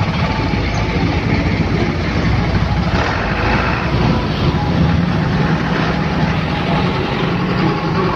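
Heavy truck engine running steadily at close range in slow traffic, a loud, low, continuous engine sound, with a brief spell of higher-pitched noise about three seconds in.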